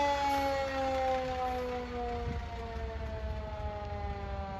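Fire truck's siren winding down: one slowly falling tone that grows fainter, with a low engine or road noise underneath.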